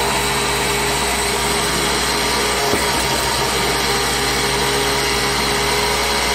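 Countertop blender motor running steadily on low speed, grinding rolled oats into oat flour in its glass jar.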